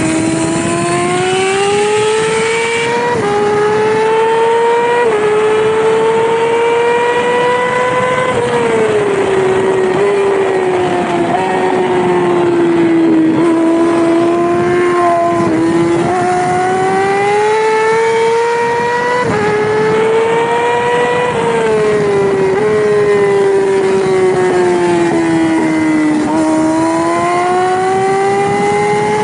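Yamaha R6 inline-four race bike engine at high revs, its pitch climbing with brief sudden dips at quick upshifts, then falling back in steps on downshifts and slowing for corners, several times over.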